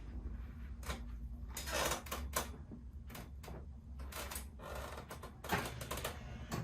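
Neck joints cracking during a hands-on chiropractic adjustment: a series of sharp clicks and pops, with two brief rustles, one about two seconds in and one past the middle.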